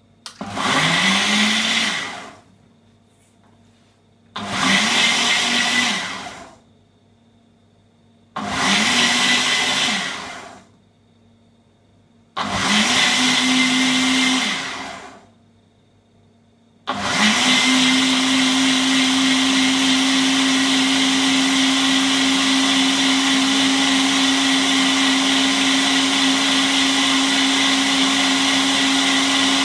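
Ninja BL492UK Auto-IQ blender motor on its Blend program, blending strawberries, milk and ice cream. It gives four pulses of about two seconds each, the motor whining up to speed and spinning down between short pauses. After the fourth pulse it runs continuously at a steady pitch, incredibly noisy.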